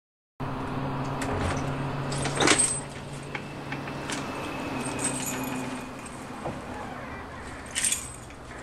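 Small metallic jingles and clicks over a steady low hum, which starts abruptly about half a second in; the two loudest jingles come about two and a half seconds in and near the end.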